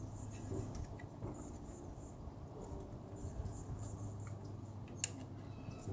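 Quiet handling of a plastic floodlight housing as it is fitted onto its wall-mounting bracket, with one sharp click about five seconds in. Faint high cricket chirping and a low hum run underneath.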